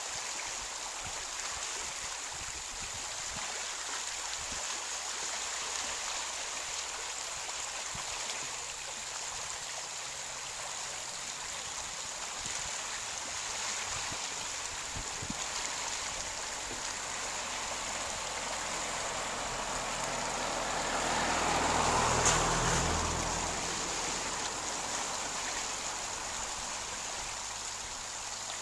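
Small waves lapping steadily at the loch shore, a continuous watery wash. A louder swell builds and fades about 22 seconds in.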